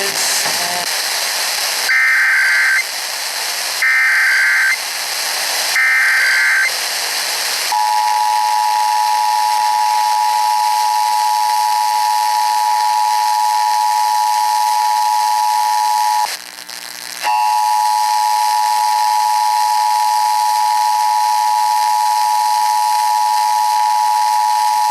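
Emergency Alert System test over FM radio: three one-second bursts of screechy digital SAME header data, then the steady two-tone attention signal (853 and 960 Hz sounded together), which drops out for about a second partway through and resumes, over a constant radio hiss.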